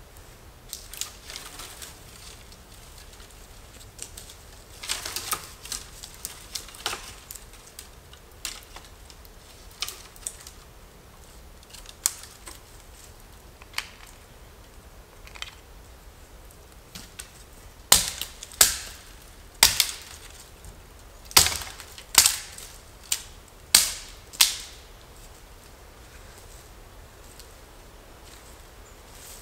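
Light footsteps and small twig snaps on the forest floor. Past the middle come eight sharp cracking knocks in about six seconds: a hatchet striking dry dead wood.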